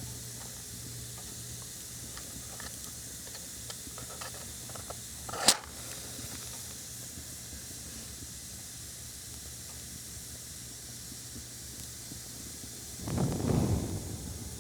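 Light handling clicks, then a match struck about five and a half seconds in: one quick sharp scrape and flare. Near the end, a breath blows the match out, a rushing puff lasting about a second and a half. A faint steady hiss lies underneath.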